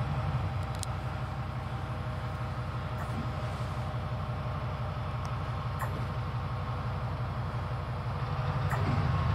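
A train running with a steady, deep rumble that grows louder about nine seconds in.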